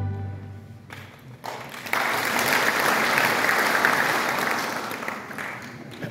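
The last sung chord of a choir dies away, and about two seconds in a congregation breaks into applause that goes on for a few seconds and fades near the end.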